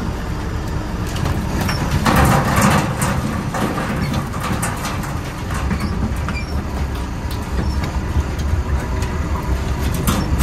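A boat engine running steadily under repeated clanks and rattles of a wire crab pot being shaken out and handled, with a louder burst of rattling about two seconds in.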